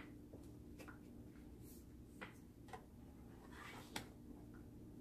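Faint handling of oracle cards being picked up and laid down on a cloth-covered table: a handful of light, brief taps and slides, the sharpest about four seconds in, over a faint steady hum.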